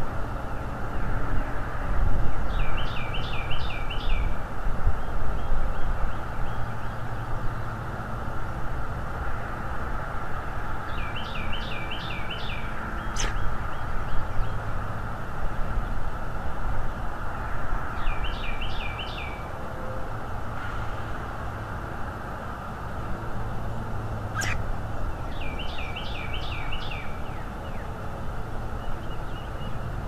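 A songbird sings the same short phrase of five or six quick slurred notes four times, about every seven seconds, over a steady low outdoor rumble. Two brief sharp clicks come midway and later on.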